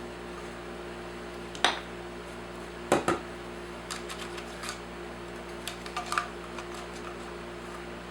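Hard plastic vacuum cleaner parts clicking and knocking as they are handled and fitted together. The loudest knocks come about a second and a half in and a double knock about three seconds in, with lighter clicks after, over a steady low hum.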